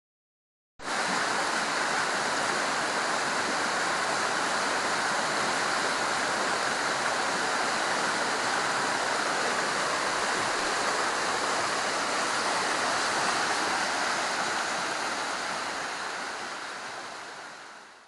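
Creek water rushing over rocks in shallow rapids: a steady rush that starts abruptly about a second in and fades out near the end.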